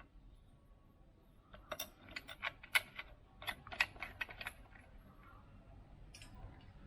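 Small metal hardware clicking and clinking as it is handled: bolts and spring washers for an exhaust mounting clamp. About a dozen sharp, irregular clicks come in a cluster from about a second and a half in, then stop.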